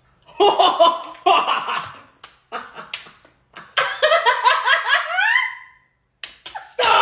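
People laughing hard, high-pitched, in two bouts, the second climbing in pitch as it trails off.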